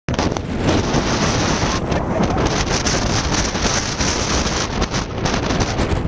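Strong wind buffeting the camera microphone: a loud, unbroken rushing noise with rapid gusty flutter.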